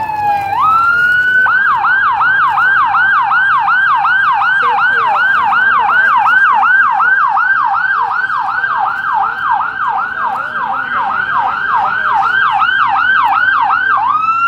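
Electronic emergency-vehicle siren, loud: a falling wail that switches about a second in to a rapid yelp, rising and falling about three times a second.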